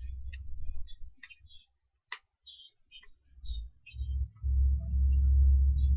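Trading cards being flicked and slid one behind another in the hands, a run of short dry clicks and snaps. About four and a half seconds in, a louder low rumble sets in and holds.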